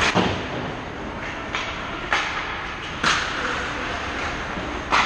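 Ice hockey play near the net: a steady scrape of skates on ice, broken by about five sharp clacks of sticks and puck. The loudest come right at the start, about three seconds in, and near the end.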